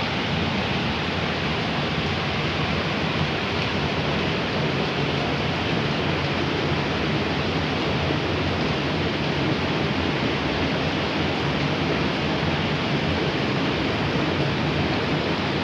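Steady, even rushing of water with no breaks or changes.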